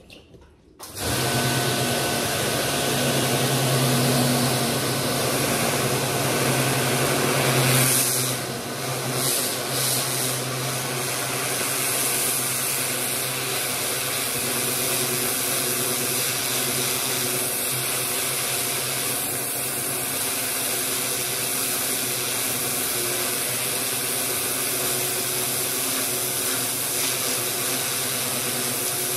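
Pressure washer starting up about a second in, then running steadily: the motor's steady hum under the hiss of the high-pressure jet blasting wet manure off a concrete floor.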